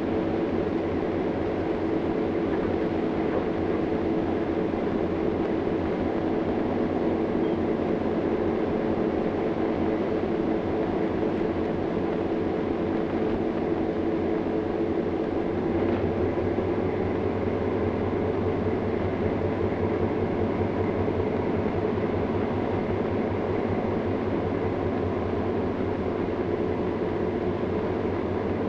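Army tugboat's engine running steadily while the tug pushes a barge: a continuous mechanical drone with a steady hum. The deep low hum grows a little stronger about halfway through.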